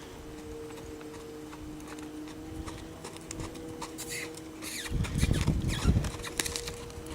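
Hoofbeats of a yearling Quarter Horse moving on the ground, scattered and light at first. Heavier, louder hoof thuds come in about five seconds in.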